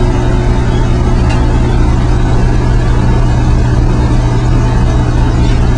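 Steady, loud drone of running machinery with a constant low hum, engine-like, from the equipment of an automatic pipeline welding station.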